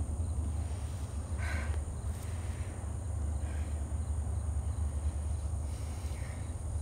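Open-field outdoor ambience: wind rumbling on the microphone under a steady high-pitched insect trill, with a few faint short chirps.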